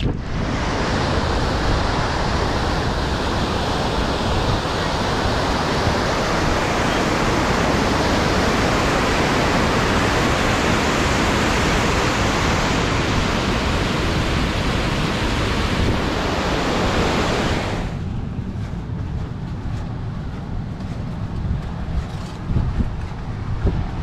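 Whitewater rushing over a river weir, a loud, steady spray of water noise. It cuts off suddenly about 18 seconds in, leaving wind rumbling on the microphone and a few light knocks near the end.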